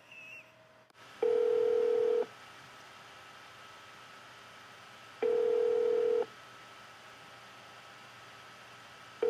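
Ringback tone of an outgoing Skype call, ringing while it waits to be answered: a steady mid-pitched tone about a second long, repeating every four seconds. There are two full rings and a third starting at the very end, with a faint steady hum on the line between them.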